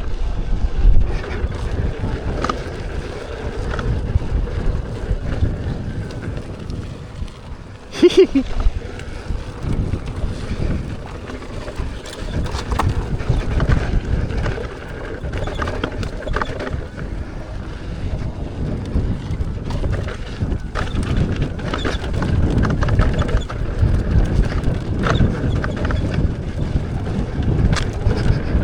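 Electric unicycle ridden down a rough dirt trail: wind buffeting the microphone over a steady low rumble from the tyre, with frequent knocks and rattles as it hits bumps. There is a brief louder burst about eight seconds in.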